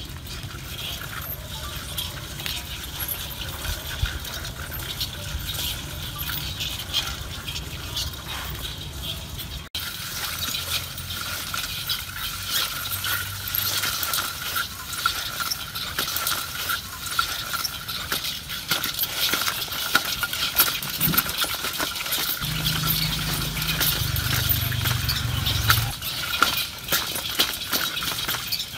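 Outdoor ambience: dense fine ticking and clicking over a steady high tone, with a low rumble that comes and goes. A brief dropout about ten seconds in.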